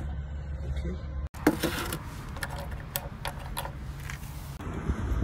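Keys on a small ring clinking and tapping as they are handled and set down on a ledge: a run of light clicks starting about a second and a half in. A steady low rumble comes before the clicks.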